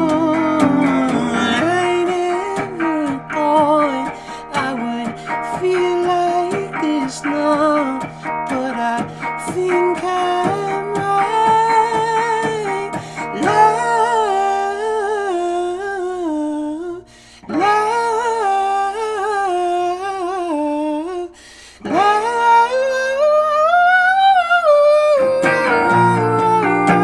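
A man singing over a strummed Gibson hollow-body guitar. About halfway in the strumming stops and the voice carries on in long held notes, breaking off twice and climbing high, until the strumming comes back near the end.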